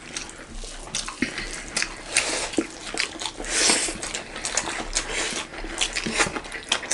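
Close-miked eating sounds: wet chewing and lip smacks as a string of short sharp clicks, with fingers mixing rice and curry on steel plates.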